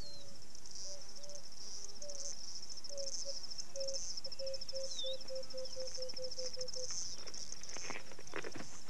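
Savanna ambience: a steady, high-pitched, pulsing insect trill, with a bird giving a run of low, short notes that speed up over several seconds.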